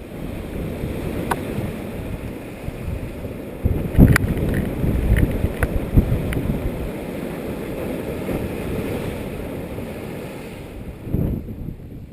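Strong wind buffeting a GoPro's microphone: a steady low rush, with a few sharp clicks and knocks about four to six seconds in.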